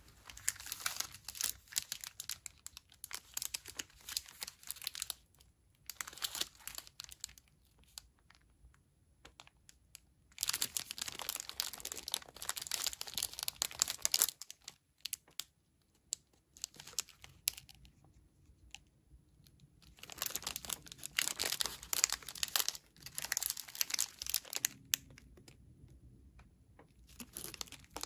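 Plastic wrapper of a dark chocolate bar crinkling as it is handled and turned over, in several bursts with quiet pauses between.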